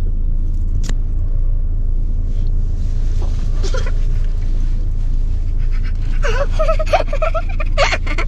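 Steady low drone of a small three-cylinder 1.0-litre Fiat's engine and road noise, heard from inside the cabin while driving. From about six seconds in, a child laughs and squeals loudly.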